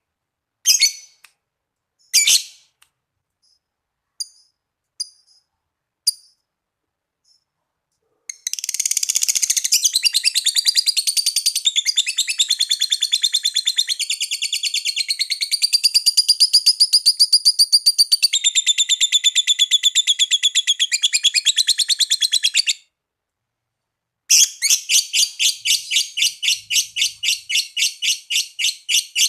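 Lovebird giving a few short, sharp calls, then breaking into long, rapid, evenly pulsed chattering trills: the long 'ngekek' song prized in Indonesian lovebirds. The first trill runs about fourteen seconds, stops briefly, then starts again near the end.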